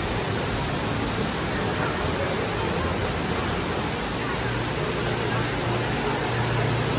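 A steady, even rushing noise with faint voices underneath.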